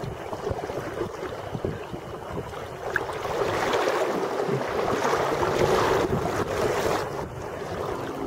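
Shallow river water flowing and sloshing, with wind noise on the microphone; it grows louder from about three seconds in and eases near the end.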